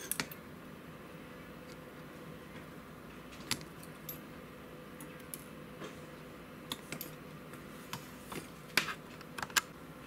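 Scattered small clicks and taps of metal tools being handled against an RCA jack held in helping-hands clips, over a faint steady hum, with the two loudest clicks near the end.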